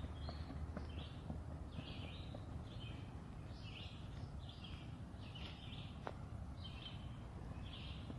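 A bird calling over and over in short high notes, about one or two a second, over a steady low rumble.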